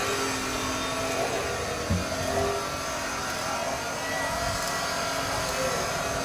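A motor running steadily, with a single knock about two seconds in.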